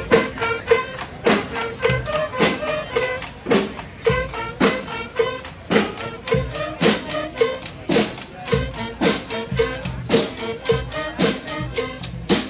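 Street brass band of horns and drums playing, with a steady drum beat about twice a second and a short horn figure repeating on one note.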